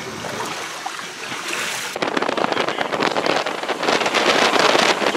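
Wind buffeting the camera microphone, jumping to a loud, ragged rumble about two seconds in.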